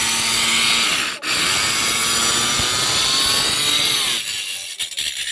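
Electric marble cutter running its blade through a marble slab, a loud whining grind. It cuts out for an instant about a second in, then fades near the end and stops.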